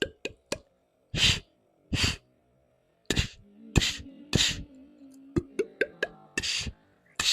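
Mouth-made punch sound effects: about a dozen short, sharp bursts of breath and lip noise at irregular intervals, some with a quick rising whoosh.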